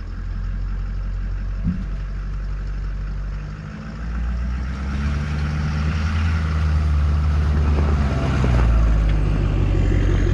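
4x4 Ford pickup truck's engine running, then revving harder about four seconds in as the truck drives out through deep snow, growing louder as it pulls past.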